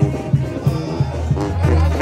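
Live brass band music: a sousaphone bass line under a steady drum beat, about three beats a second.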